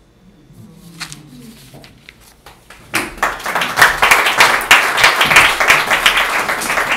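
A small audience applauding at the end of a poem, starting about three seconds in and carrying on steadily.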